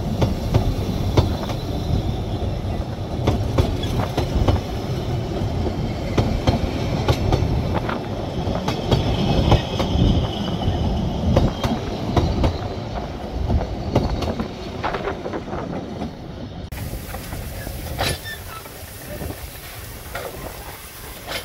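Narrow-gauge railway carriages rolling slowly past, a steady low rumble with many short clicks and clatters from the wheels and couplings. About three-quarters of the way through it gives way abruptly to a quieter sound with a few clicks.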